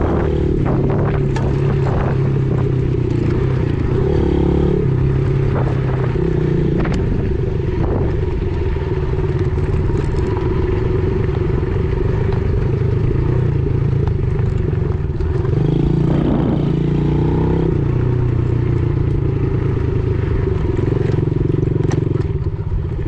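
Dirt bike engine running as the bike rides a rough dirt trail, its pitch stepping up and down with throttle and gear changes, with scattered knocks and clatter from the ground. It eases off near the end.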